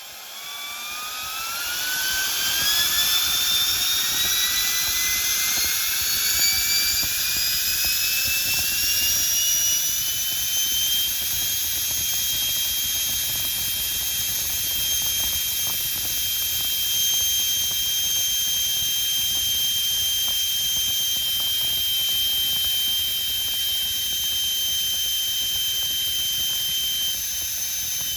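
Electric ducted fan with a brushless motor spinning up. Its whine climbs steadily in pitch over about ten seconds, then holds at a steady high jet-like pitch over the rush of air.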